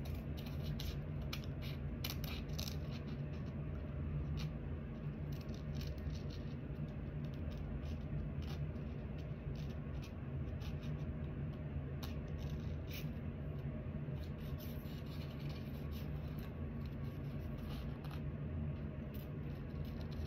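Metal scissors snipping through sticker paper in short, irregular clicks, over a steady low hum.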